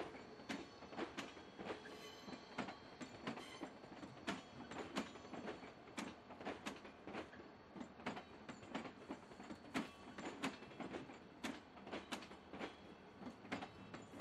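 Railway wheels of a slow-moving train consist, the new GTX-A A01 EMU on its delivery run, clacking irregularly over rail joints, two or three sharp clacks a second, with a faint high wheel squeal in the first few seconds.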